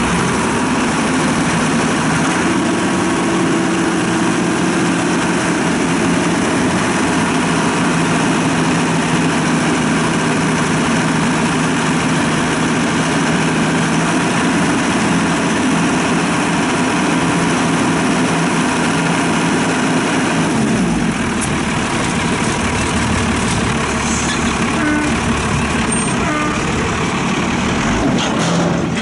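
Cummins 12-valve turbo diesel straight-six of a Yard Master YM4000H yard tug idling steadily, its low tone shifting slightly about three-quarters of the way through.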